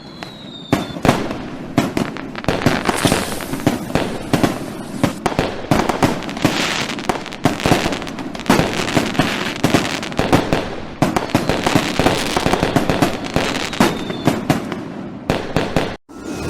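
Fireworks going off in a dense barrage: many overlapping bangs and crackles with no pause, after a short falling whistle at the start, cutting off abruptly near the end.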